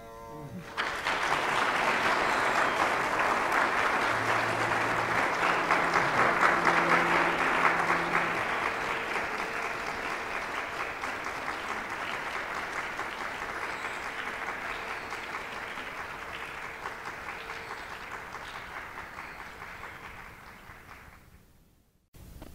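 Audience applauding: it breaks out about a second in, is loudest over the first several seconds, then slowly dies away and cuts off near the end.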